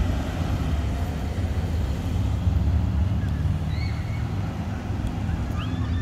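Diesel engine of a Mack McNeilus front-loader garbage truck running with a steady low rumble as the truck drives away.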